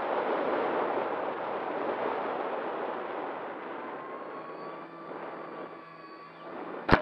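Rushing airflow noise as the FliteTest Kraken model plane comes in low on an autonomous landing, fading steadily as it slows, with a faint hum showing through in the second half. A single sharp knock comes just before the end.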